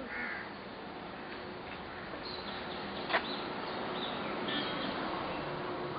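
Outdoor background ambience: a steady noise bed with a few faint bird chirps, and a single sharp click about three seconds in.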